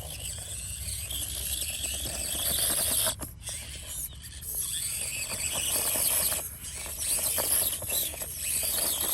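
Axial SCX24 micro RC crawler driving: its small electric motor and gears whining high, with tyres and chassis brushing through weeds. The whine stops and starts, cutting out briefly about three seconds in, again near six and a half seconds, and once more near the end.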